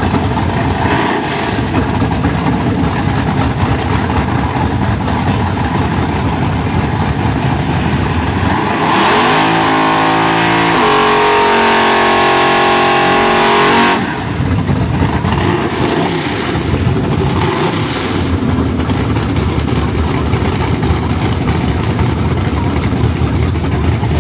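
Ford Mustang GT's V8 running at low revs, then doing a drag-strip burnout: about nine seconds in the engine is held high for about five seconds, a loud steady howl with the rear tyres spinning, before dropping back to a low rumble as the car pulls forward.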